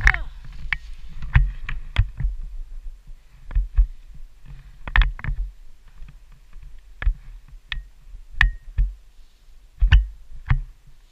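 Skiing down a hard-packed groomed slope, heard through a helmet-mounted camera: irregular knocks and low thumps as the skis and body ride over the snow, with a few short high pings.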